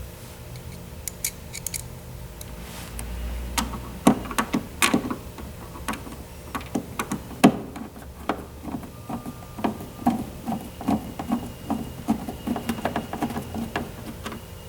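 Phillips screwdriver driving screws into a massage chair's rear plastic shroud: scattered clicks and small knocks, then a quicker run of small regular clicks in the second half.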